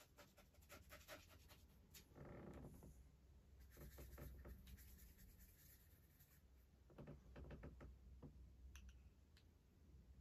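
Faint scratchy dabs and strokes of a paintbrush laying acrylic paint onto a canvas, coming in short clusters with a brief spell of brushing paint on the palette in between.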